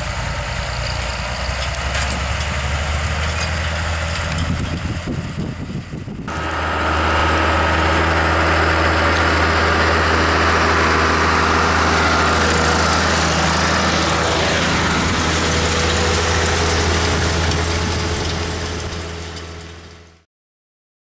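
Steyr 8100 tractor's diesel engine running steadily under load while pulling a cultivator through the soil. About six seconds in the sound jumps to a louder, closer take, then fades out near the end.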